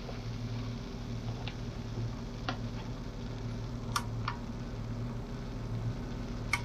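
A few light clicks and taps of a plastic spatula against a black electric skillet as garlic slices are stirred in foaming butter, over a steady low hum.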